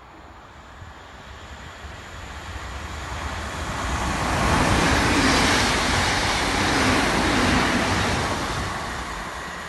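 A Class 458 electric multiple unit passing through a station at speed without stopping: its wheel-on-rail noise builds as it approaches, is loudest for a few seconds as it goes by, then fades.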